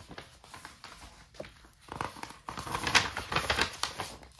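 Paper crinkling and rustling as a creased paper folder holding a photocard is handled and opened by hand, loudest about a second and a half in and again around three seconds in.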